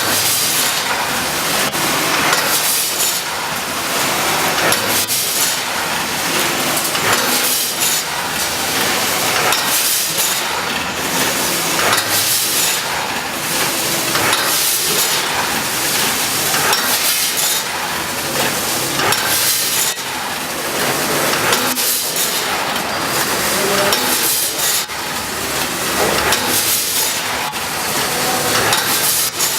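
Automatic bag packaging machine running through its cycle: a steady mechanical clatter with hissing, and a louder knock-and-hiss recurring every second or two.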